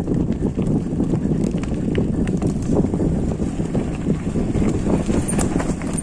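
Mountain bike rolling over a dirt and gravel track: steady tyre noise with many small rattling clicks from the bike, and wind on the microphone.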